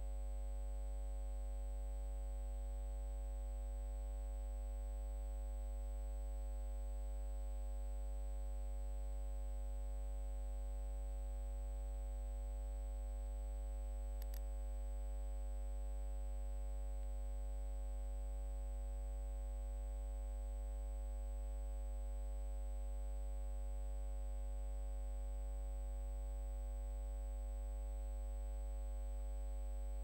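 Steady electrical mains hum with its stack of overtones, unchanging throughout, plus one faint click about 14 seconds in.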